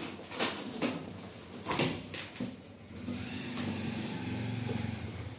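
Knocks and scrapes of hands on a cardboard shipping box while its packing tape is being picked at. A steady low hum joins about halfway through.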